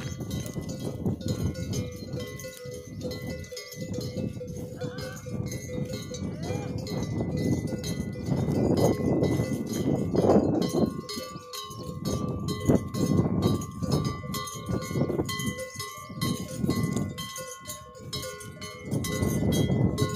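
Metal bell hanging from a walking camel's neck, clanking irregularly with the camel's stride, its ring lingering between strikes.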